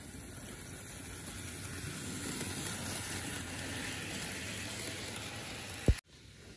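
HO scale model train running past on its track, a steady rumble and hiss of wheels and motor that grows louder as the cars go by. One sharp click near the end.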